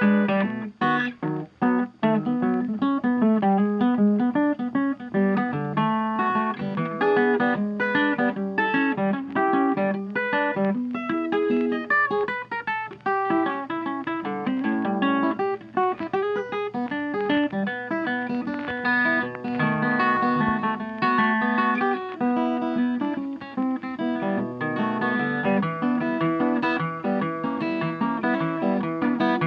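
Background music: a blues tune on plucked and strummed guitar with a steady rhythm.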